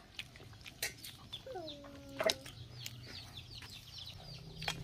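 Chickens clucking faintly, with one short drawn-out call about a second and a half in, among scattered small clicks.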